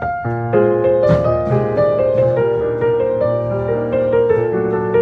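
Piano playing a sequence of sustained, changing chords.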